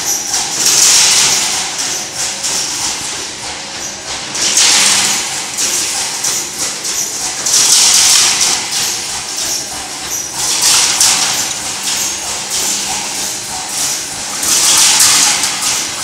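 Steel coil cut-to-length line running: a steady mechanical din with a loud hiss that swells and fades about every three and a half seconds as the line cycles.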